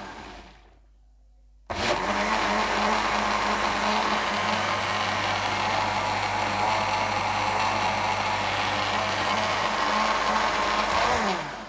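Electric blender motor puréeing cooked tomato soup. It spins down at the start and is switched on again abruptly about two seconds in. It then runs steadily and winds down, falling in pitch, near the end.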